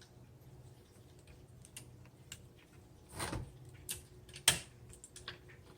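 Small clicks and taps of a typewriter's parts being handled as the paper guide is worked free from behind the ruler, with a short rustle just after three seconds and one sharp click about four and a half seconds in.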